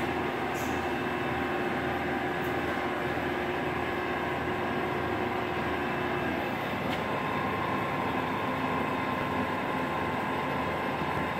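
Steady mechanical hum of running machinery with several held tones. Partway through, one lower tone drops away and a higher tone comes in.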